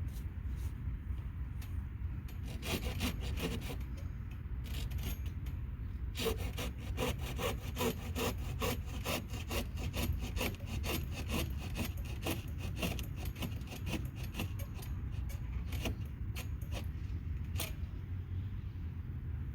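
Hand saw cutting through wood in quick, even back-and-forth strokes, about three a second. The sawing starts a couple of seconds in, runs steadily from about six seconds, and stops near the end.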